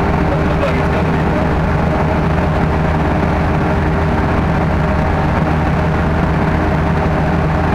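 Sherp ATV's diesel engine running at a steady speed as the vehicle wades through marsh water, heard from inside the cab as a constant, even drone.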